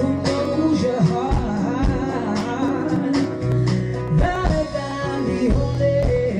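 Live R&B band performance: a female singer's voice sliding through wavering sung notes over electric and acoustic guitars and a steady low bass line.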